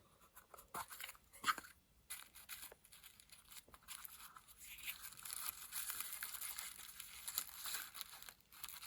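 Faint rustling and crinkling of small packets of watch parts being handled, with scattered light clicks of small parts and containers; the rustling is fuller in the second half.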